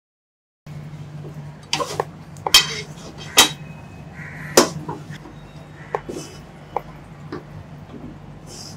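A spatula knocking and scraping against a metal pan in separate sharp clicks while ground sesame and peanut powder is stirred into melted jaggery, over a low steady hum.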